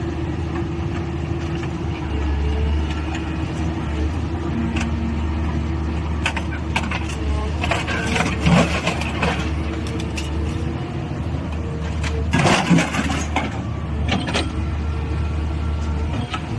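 Eagle-beak scrap-metal shear at work: a machine runs with a steady drone, and a few short metallic crunches and clanks come as steel is bitten and cut, the loudest a little over halfway through.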